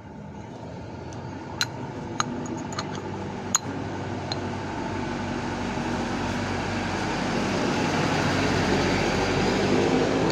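An engine running steadily and growing gradually louder, with a few sharp clicks or taps in the first few seconds.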